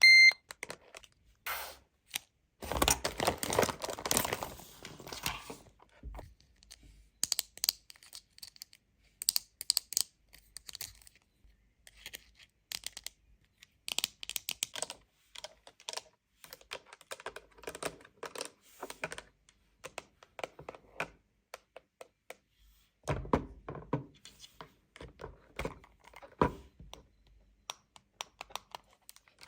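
Close-up clicks, taps and light knocks of a toy cash register set and its small plastic pieces being handled and unpacked, with a few seconds of rustling packaging near the start. A short electronic beep sounds at the very beginning.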